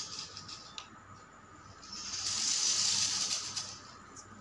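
Small electric motors and gearing of homemade RC cars driving on a concrete floor, a hiss with a faint steady whine and a few light clicks. It grows louder about two seconds in and fades again shortly before the end.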